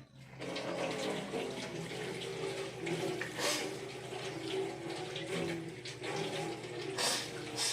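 Water running from a tap into a sink, with a steady splashing and a couple of louder splashes.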